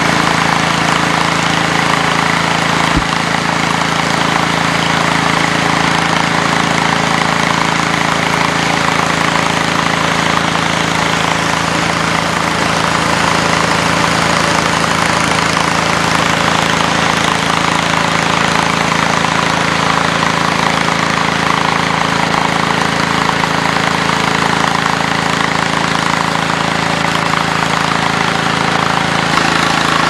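Farm engine running at a steady speed, driving a portable grain auger while grain is loaded, with a steady rushing noise over the engine's hum.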